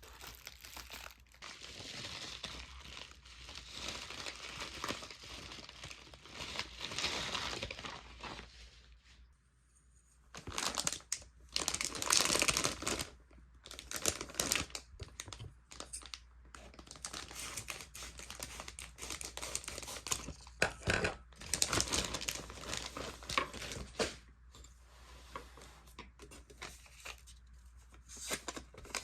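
Irregular crinkling and rustling of something being handled, in uneven bursts with a brief pause about nine to ten seconds in.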